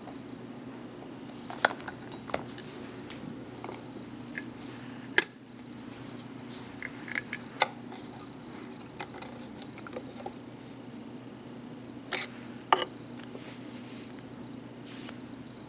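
Scattered clicks and light metal taps of hands handling a vintage Singer 128K sewing machine, including its metal bed slide plate being slid open. The loudest is a sharp click about five seconds in, with two more close together a little past twelve seconds, over a faint steady hum.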